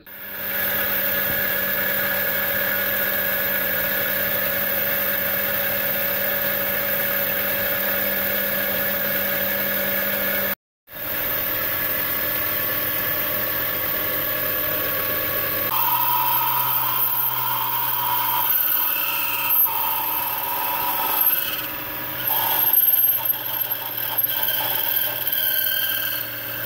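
Benchtop metal lathe running, its motor and spindle giving a steady whine of several tones. From about halfway, a drill held in the tailstock is fed into the spinning metal workpiece, and the sound changes pitch and turns uneven as it cuts.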